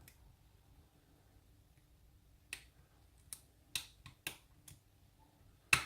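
Lock pick and tension wrench clicking in a pin-tumbler challenge lock: about six short, sharp clicks over the second half, the last the loudest.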